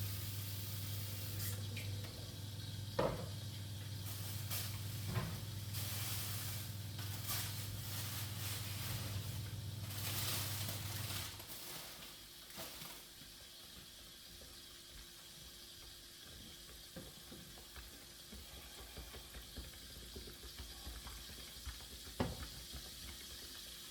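Food sizzling as it cooks in a pot, with a few sharp clinks of utensil or lid. A steady low hum runs underneath and stops about halfway through.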